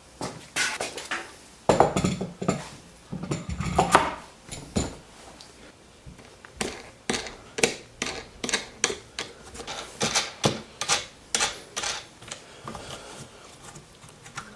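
Irregular clicks and knocks of wooden and metal parts being handled and fitted together, with a few heavier knocks a couple of seconds in.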